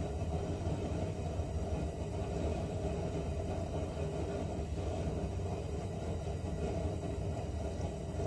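Front blower motor of a 2007 Honda Odyssey running steadily, a low rumble with a rush of air, while its sticky shaft bushings are worked in after a flush with carburetor cleaner.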